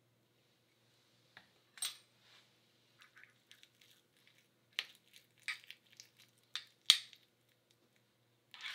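Metal spoon stirring a mayonnaise mixture in a small ceramic cup: scattered light clicks and scrapes of the spoon against the cup, the sharpest click about seven seconds in.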